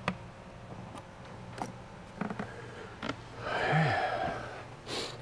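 Light clicks and taps of parts and a pencil being handled on a plastic boat dash, with a louder rustling scrape about three and a half seconds in.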